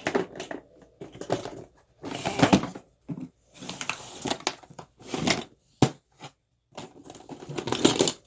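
Hands rummaging through a pile of plastic fidget toys: irregular bursts of rustling and clattering with a few sharp clicks.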